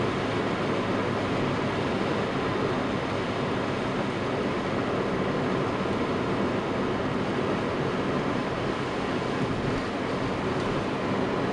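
A car driving at road speed, heard from inside the cabin: a steady mix of engine hum and tyre noise on a wet road.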